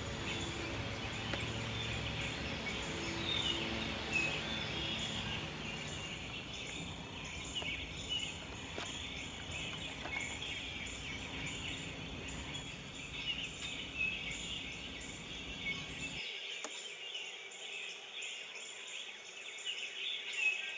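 Outdoor ambience: a steady high-pitched chorus with scattered short chirps, over a low rumble that cuts off abruptly about three quarters of the way through.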